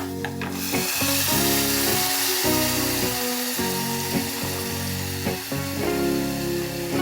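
Food sizzling while frying, a steady hiss, under background music with held notes that change every second or so.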